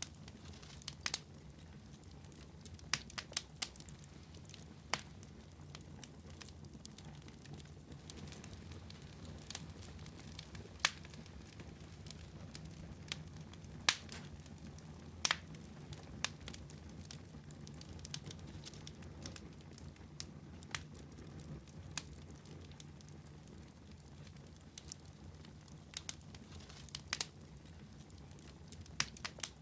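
Wood fire crackling in a fireplace: irregular sharp pops and snaps, some louder than others, over a steady low rumble.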